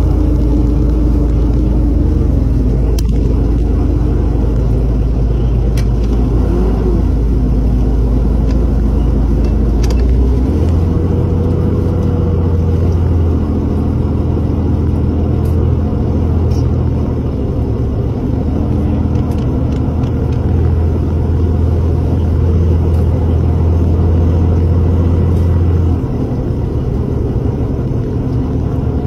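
A fishing boat's engine running with a steady low rumble. Its note shifts about ten seconds in, and it drops a little in level near the end.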